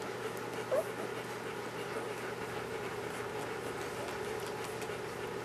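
A newborn German Shepherd puppy gives one short, rising squeak about a second in, over a steady background hum.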